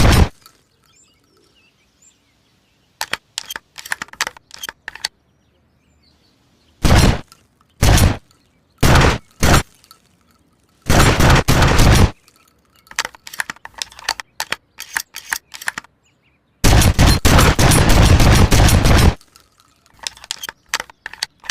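Homemade shotgun sound effects: sharp blasts, several single shots about a second apart, then a longer blast of about a second and a sustained rattling burst of about two and a half seconds near the end, with clusters of small clicks and clacks in between.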